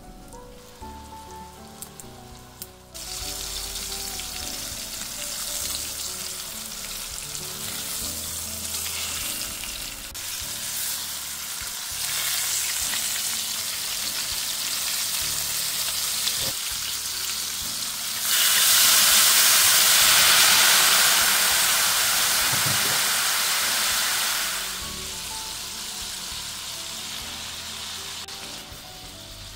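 Flour-dredged veal shanks sizzling as they brown in hot oil in a frying pan, starting about three seconds in and growing louder for about six seconds in the middle. Soft background music plays throughout and is heard alone at first.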